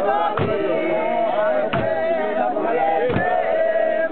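Group of women singing a gospel chant together in unison, with sharp hand claps on a slow beat about every second and a half.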